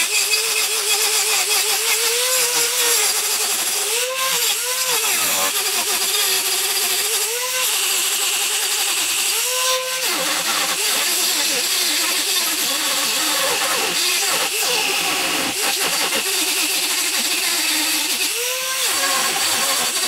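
Angle grinder with a chainsaw-chain carving wheel cutting into a pine log, stripping off bark and cutting down a knot. The motor's pitch sags as the wheel bites into the wood and rises briefly each time the load comes off, about half a dozen times.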